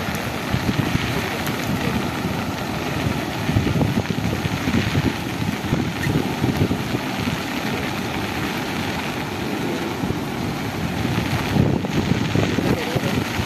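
Steady rush of fast, muddy floodwater pouring across a road in heavy rain, with wind buffeting the microphone.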